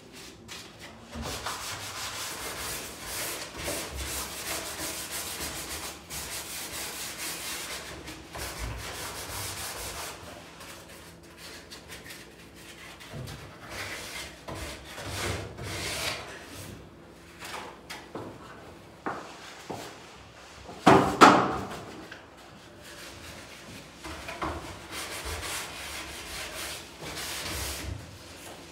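Hand sanding of a painted wall and door trim with a sanding block: repeated rasping strokes, fairly continuous for the first ten seconds, then in shorter spells. One loud knock about two-thirds of the way through.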